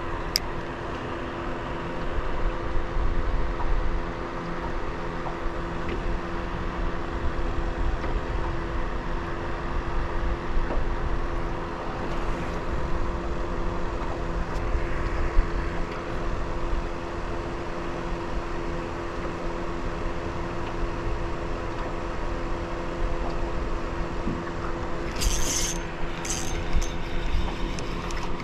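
A steady motor hum over a low rumble, holding one pitch throughout, with two or three short rattling clicks about 25 seconds in.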